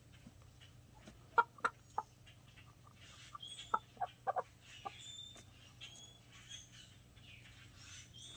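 A flock of Ayam Cemani chickens clucking, with a run of short, sharp clucks between about one and five seconds in.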